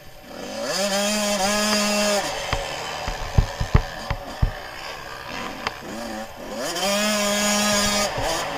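Suzuki RM 85 two-stroke single-cylinder motocross engine revving hard twice. Each time the pitch climbs quickly, holds high for about a second and a half, then drops off. Several sharp knocks come between the two revs.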